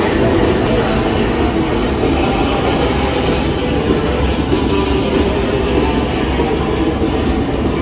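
A busker's guitar music over the steady rumble of an Underground station: escalator machinery and trains.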